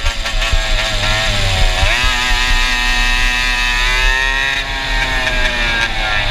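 Go-kart engine fitted with a stinger exhaust, running hard on the track. Its pitch dips sharply about two seconds in, climbs back, then sags slowly toward the end.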